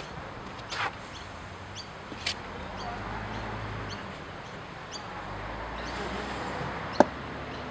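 Open-air ambience with a few short bird chirps, and one sharp knock about seven seconds in.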